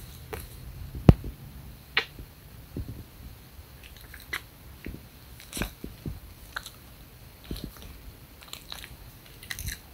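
A small curly-haired puppy licking and mouthing close to the microphone: irregular wet clicks and smacks, the loudest about a second in, with fur rubbing against the phone.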